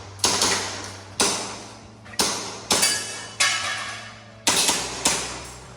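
Airsoft pistol firing a string of seven shots at an uneven pace, each a sharp crack with a short ringing tail.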